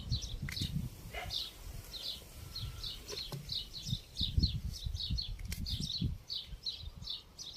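A small bird chirping over and over, short high notes about three a second. Under it are irregular low rustles and thumps and a few sharp clicks from hands breaking apple pieces into a plastic bottle.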